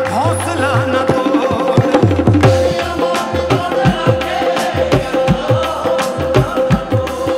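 Live Punjabi Sufi folk music: a harmonium holds a steady drone under a brisk hand-drum rhythm whose deep bass strokes bend down in pitch, and a sung phrase trails off in the first second.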